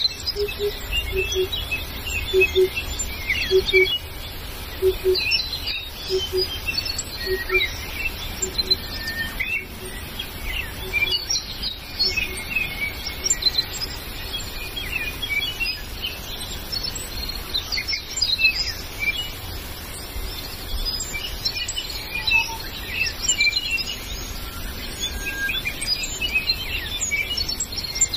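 Forest birds chirping and whistling, many short calls overlapping. A low hooting call repeats every half second to a second, slowing and fading out about halfway through, over a steady low rumble.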